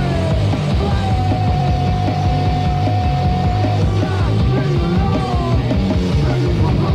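Punk rock band recording playing: loud, dense music with a high note held for about three seconds near the start.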